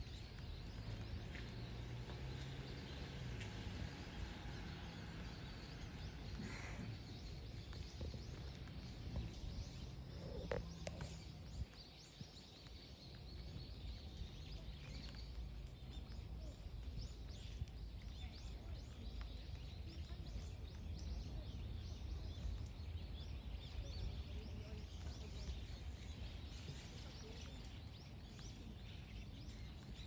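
Outdoor ambience: a steady low rumble with faint, scattered bird chirps.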